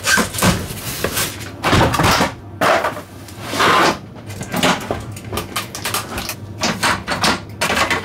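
Unboxing and assembling small plastic egg incubators: cardboard box flaps and packaging rustling, and plastic parts and egg-turner rails clacking and scraping together in an irregular run of short bursts.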